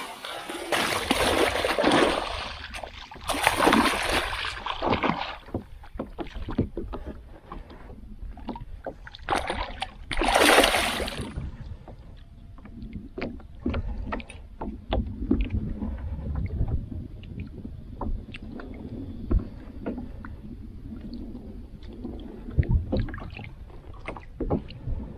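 A hooked peacock bass thrashing at the surface beside a kayak: several heavy splashes in the first few seconds and another about ten seconds in, then quieter water sounds with scattered small knocks.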